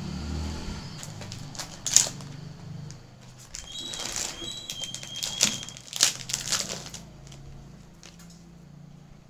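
Packaging wrapper crinkling and crackling as a piece of jewellery is unwrapped by hand, with sharp crackles loudest about two seconds in and again around six seconds, fading near the end.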